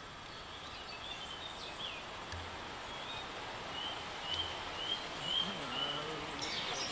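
Steady rush of a river with a bird calling over it, a short repeated note about five times in a row midway through.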